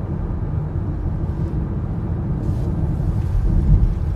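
Low, steady rumble of a car's road and engine noise heard from inside the cabin, with a brief swell in the rumble near the end.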